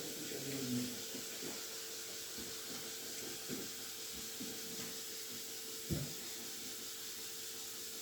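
Steady hiss with a faint steady hum from running workshop machinery, with a single light knock about six seconds in.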